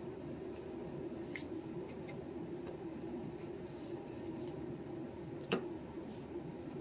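Quiet room with a steady low hum, a few faint ticks, and one sharper click about five and a half seconds in from trading cards being handled.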